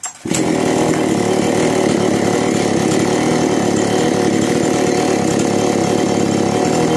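Kisan Kraft KK-CSP-6522 two-stroke petrol chainsaw engine starting about a quarter second in, then running loud and steady. The saw has a fault that makes it cut out when the throttle is pressed, which new spark plug and carburettor tuning have not cured.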